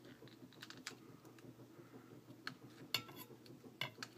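Faint, scattered small clicks and taps of metal tools and lock parts being handled, with two sharper clicks in the second half.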